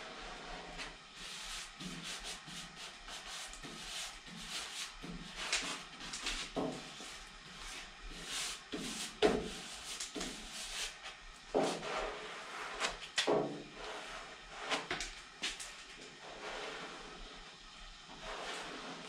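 A putty scraper and a hand rubbing a large vinyl sticker down through its transfer sheet onto a car's fender: a run of short, irregular scraping and rubbing strokes with a few sharper clicks.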